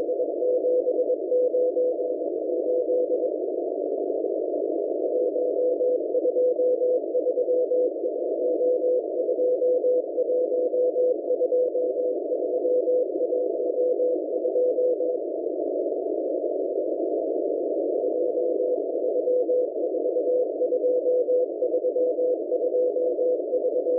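M01 numbers station sending Morse code number groups, heard through a shortwave receiver as a single tone keyed rapidly on and off over a narrow band of hiss. The keying stops twice for a few seconds, leaving only the hiss.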